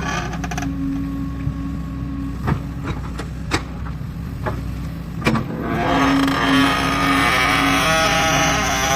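Excavator engine running steadily. It eases off soon after the start and works harder again from about six seconds in, with a few sharp knocks in between.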